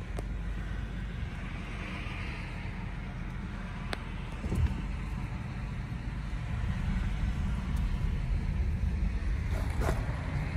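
Steady low road and engine rumble heard from inside a moving car's cabin, with a few small clicks and knocks.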